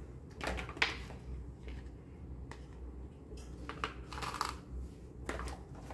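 Small plastic toy stove pieces being handled and set down on carpet: a few soft rustles and light plastic clicks, the sharpest about a second in.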